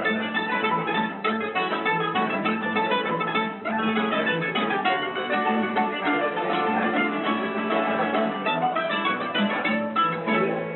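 Bouzouki and other plucked string instruments playing a Greek tune together, a dense run of picked notes.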